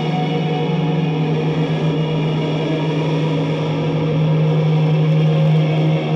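Electric guitar played through heavily effected A.C.P pedals into a Vox amp: a dense, sustained droning wash over a steady low note, swelling louder about four seconds in.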